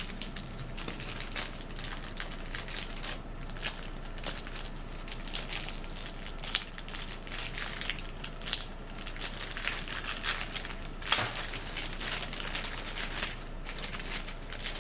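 Packaging being handled while a camcorder box is unpacked: irregular crinkling and rustling of plastic wrap and paper inserts, with a sharper crackle about eleven seconds in.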